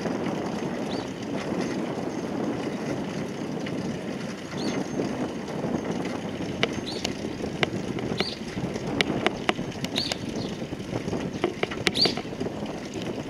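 Bicycle tyres rumbling over stone paving, with clicks and rattles as the bike rolls over the joints and wind on the microphone. Short high chirps sound every second or two from about a second in.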